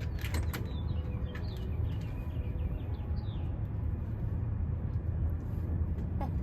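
Steady low rumble, with a few sharp clicks near the start and a run of short, high, falling bird chirps from about one to three and a half seconds in.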